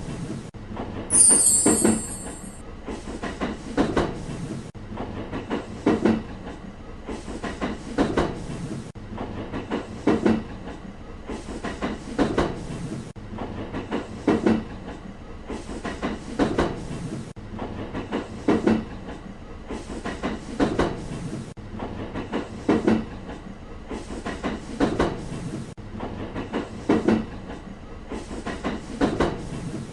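Train wheels clattering over rail joints, a regular clickety-clack of paired clacks about every two seconds. About a second in there is a brief high hiss.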